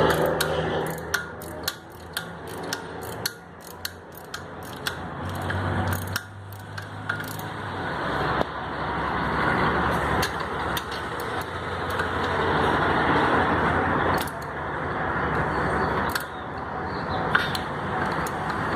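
Light metallic clicks and clinks from starter-motor parts and tools being handled, many in quick succession in the first half and sparser later, over a steady background hum.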